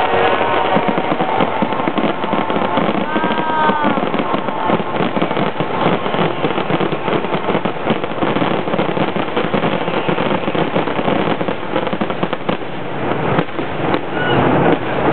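A dense, continuous barrage of fireworks: rapid overlapping bangs and crackling with no let-up, the closing volley of a large aerial display.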